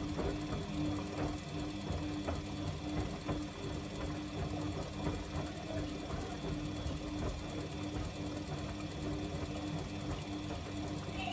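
Samsung washing machine running on a 60°C bedding cycle: a steady motor hum with irregular light knocks.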